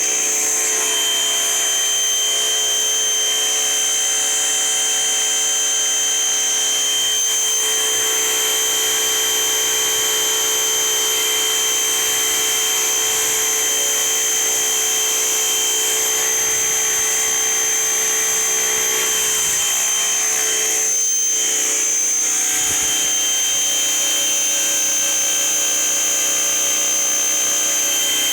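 Simoniz 1800 psi electric pressure washer running, its motor giving a steady high whine, with a brief dip about two-thirds of the way through.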